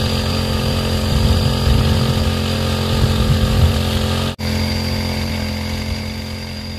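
Small engine of a motorised pesticide sprayer running steadily, with a split-second break about four seconds in.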